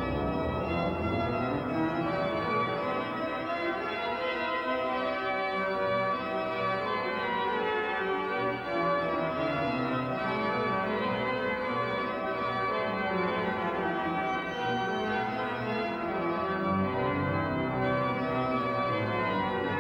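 Organ music: full, sustained chords played continuously on a multi-manual organ.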